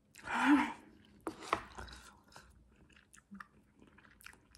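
A person chewing a mouthful of instant noodles: a short noisy burst of mouth sound about half a second in, then a few small sharp clicks and faint wet mouth sounds that thin out.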